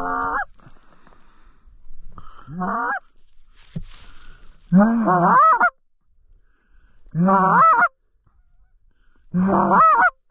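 Canada goose honks, loud and close: five calls about two seconds apart, each breaking from a low note up to a higher one.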